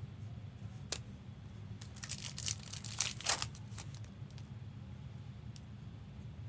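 Trading cards and their packaging being handled: a sharp click about a second in, then a short spell of crinkling and rustling, over a low steady hum.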